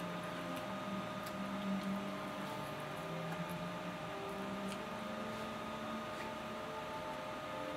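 Steady room noise with a faint electrical hum and a few soft clicks.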